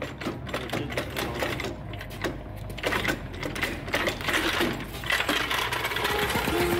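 Steel hydraulic floor jack stuck under a car being worked free and pulled out: a fast, irregular clatter of metallic clicks and rattles from the jack's handle, frame and wheels on a concrete floor.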